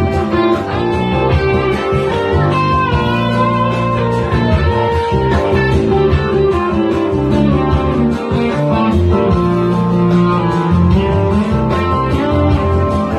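Electric guitar played live through an amplifier: sustained notes, with some bent in pitch about two to four seconds in.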